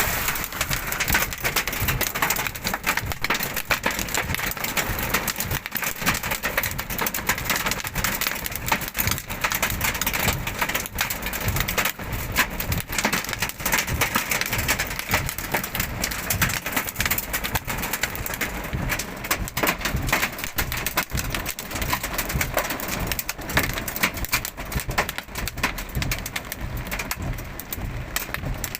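Hailstorm: hailstones pelting down on hard surfaces in a dense, continuous rattle of countless small impacts, mixed with the hiss of heavy rain.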